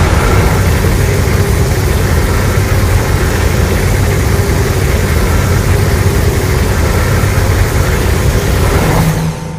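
A long, loud, steady synthesized monster sound effect made for Godzilla, a dense noise heavy in the low end that holds for about nine seconds and then fades out near the end.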